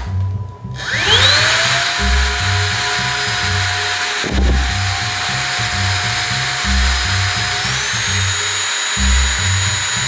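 Cordless stick vacuum motor switching on about a second in with a rising whine that settles into a steady run, then stepping up to a higher pitch after about seven and a half seconds as the suction is set to a higher level. Background music with a steady beat plays underneath.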